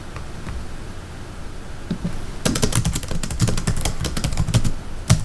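Typewriter keys being struck: a few scattered keystrokes, then a fast run of typing starting about halfway through, with one louder strike near the end.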